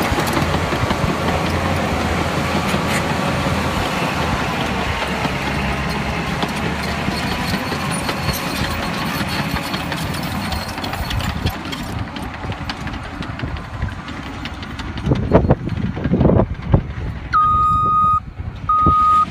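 Heavy earthmoving machine running steadily under work, with a couple of heavy knocks about fifteen seconds in. Near the end its reversing alarm starts beeping, about once a second.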